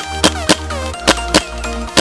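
Background music with a sharp, regular beat and a deep bass line under a melody.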